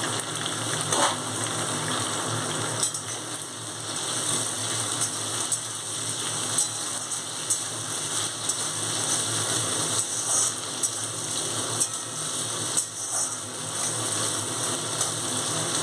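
Potato sticks sizzling steadily as they fry in hot oil in a metal kadai, with a utensil clicking and scraping against the pan now and then as they are stirred.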